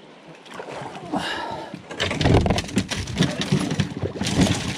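Knocks, clatter and rustling of people and gear moving about in an aluminium jon boat, coming in loud and dense about two seconds in after a quieter start.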